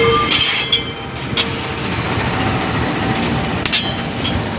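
Locomotive moving along the track during shunting: a steady rumble of engine and wheels, with a few sharp metallic clicks as the wheels pass over rail joints.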